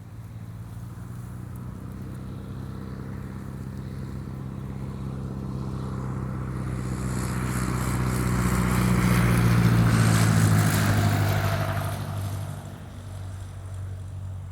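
Airplane passing overhead on its landing approach: a steady low engine hum swells to its loudest about ten seconds in, with a rushing whoosh of air, then falls away suddenly about two seconds later.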